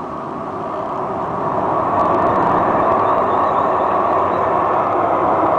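Light-rail train passing close by on street-running track: a steady rumble that grows louder over the first two seconds as it draws near, then holds.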